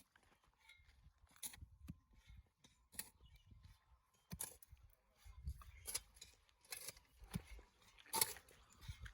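Faint, irregular clicks and knocks, a dozen or so scattered through, coming closer together in the second half.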